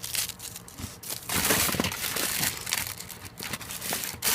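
Crinkling and rustling of plastic-wrapped firework packaging being handled, in irregular bursts that are thickest in the middle.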